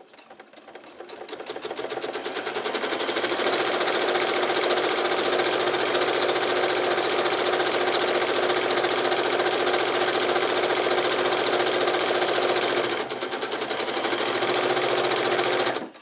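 Electric sewing machine stitching a line along a zipper, speeding up over the first few seconds, then running fast and steady. It eases off briefly near the end, picks up again, and stops.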